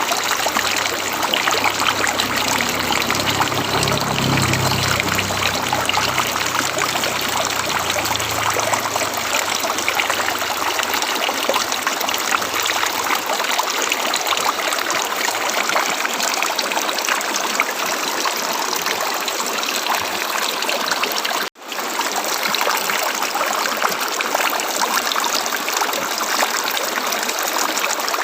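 River water flowing, a steady rushing and trickling, with a low rumble under it in the first third. It cuts out for a split second about three-quarters of the way through, then carries on.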